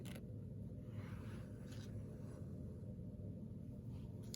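Faint handling of trading cards: a light click near the start and a few soft rustles, over a steady low room hum.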